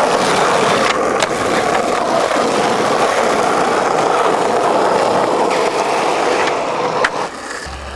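Skateboard wheels rolling on rough asphalt, a continuous gritty roll that eases off near the end, with a couple of light clicks.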